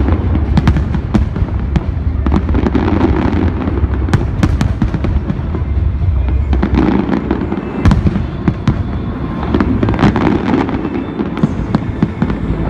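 Aerial fireworks going off in a continuous barrage: many sharp bangs and cracks over a steady low rumble.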